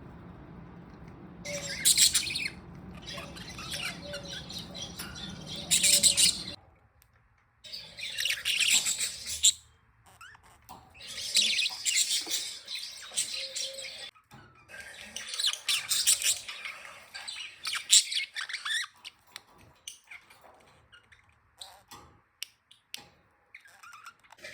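Budgerigars chirping and chattering in repeated high bursts a few seconds apart. A low steady hum underneath stops suddenly about a quarter of the way in, and scattered light clicks follow near the end.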